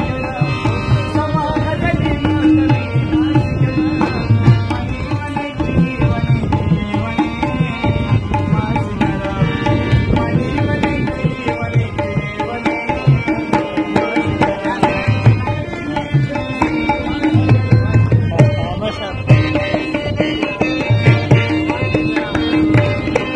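Harmonium and tabla playing Pashto ghazal music: the harmonium sustains the melody in held reed tones while the tabla beats a steady rhythm with deep bass strokes.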